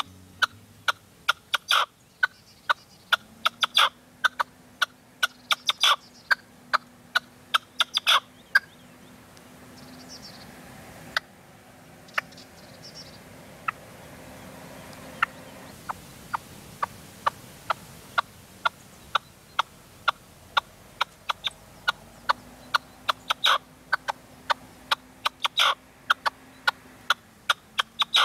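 Caged male red-legged partridge decoy calling: a long run of sharp, clipped notes, several a second, coming in denser bursts every couple of seconds, with a sparser stretch in the middle. This is the decoy 'working the field', calling to draw wild partridges.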